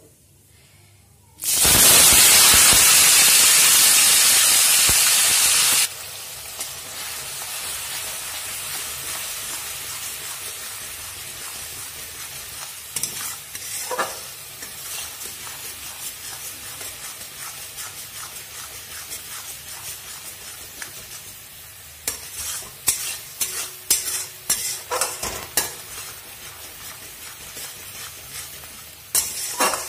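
Wet onion, ginger, garlic and tomato masala paste dropped into hot mustard oil in a steel karai: a sudden loud sizzle starts about a second and a half in, then after a few seconds drops to a steady frying sizzle. Near the end a metal spatula scrapes and clicks against the pan as the paste is stirred.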